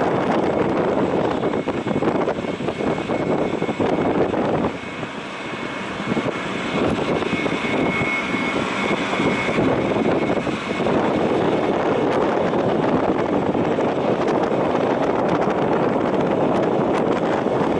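Distant aircraft on approach: a steady engine rush with a faint high whine held throughout, dipping briefly about five seconds in.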